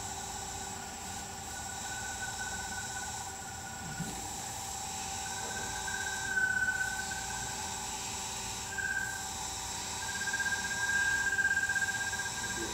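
Variable-speed wood lathe running steadily in reverse, its electric motor giving a constant whine. From about six seconds in, a higher squeak swells and fades several times as a shellac French-polishing pad drags on the spinning wood.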